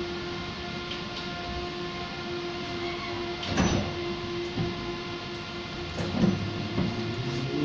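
Inside a Vario LF2 plus low-floor tram standing still: a steady electrical hum made of several constant tones, broken by a short knock about three and a half seconds in and another about six seconds in.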